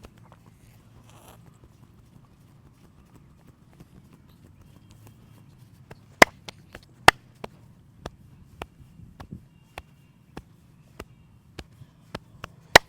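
Hands snapping and tapping during a head and back massage: a run of sharp, separate clicks starting about six seconds in, roughly two a second, with three much louder cracks among them. Before that, only a low steady hum.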